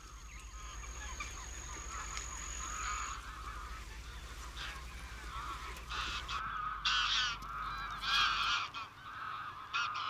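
A flock of greylag geese calling, with many overlapping calls that come in louder bunches in the second half.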